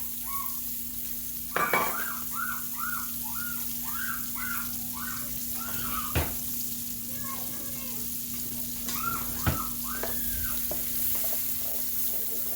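Chopped onion sizzling as it sautés in hot oil and butter left from frying chicken, with a spoon knocking on the pan three times. A run of short, high chirp-like sounds comes a couple of seconds in.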